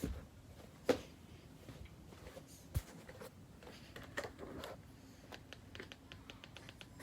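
A few scattered sharp clicks and knocks, then a quick, even run of small ticks near the end.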